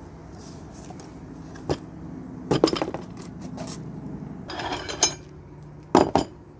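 Metal jack and spare-tire lowering tools clinking and knocking as they are unfastened and lifted out of their storage: a sharp knock, a couple of rattling clatters, then two quick knocks near the end.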